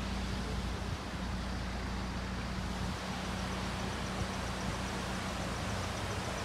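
Car running along a road, heard from inside the moving car: a steady low engine hum over road noise.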